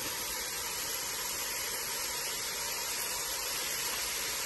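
Hot oil with mustard seeds sizzling steadily in a frying pan as grated carrot is tipped in.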